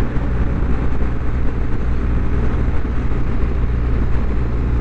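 BMW R1200GSA boxer-twin motorcycle engine running steadily at cruising speed, mixed with wind and road noise.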